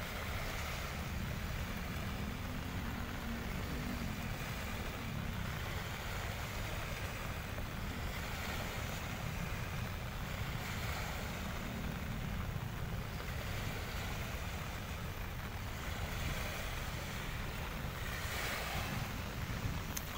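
Small waves washing onto a sandy beach in a steady wash with gentle surges, under a constant low rumble of wind on the microphone.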